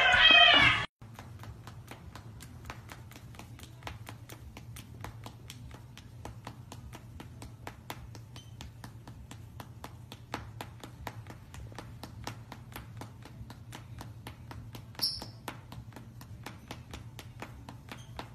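A cat yowls loudly for under a second and is cut off abruptly. Then comes a steady run of quick, even taps, about four a second, over a low hum, with one short high chirp about 15 seconds in.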